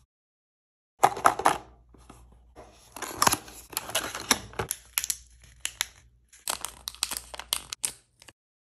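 Small cardboard toy box being opened and handled: a quick run of sharp clicks, taps and short crinkles of cardboard and packaging. It starts about a second in and stops just before the end.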